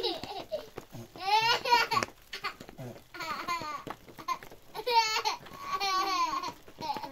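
A young child's high-pitched voice laughing and babbling in several short bursts, with no clear words.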